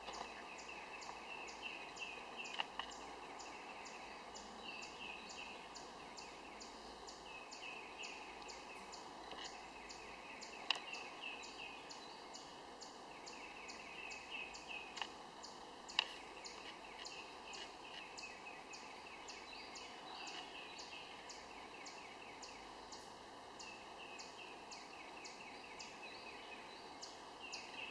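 Faint outdoor ambience with a songbird singing short runs of quick repeated notes every few seconds. A faint steady ticking runs underneath at about two a second, and there are a couple of sharp clicks.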